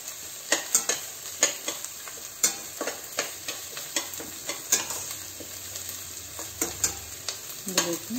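Chopped onions and ginger-garlic paste sizzling in butter in a stainless steel kadhai, while a spatula scrapes and clinks against the pan at irregular intervals as they are stirred.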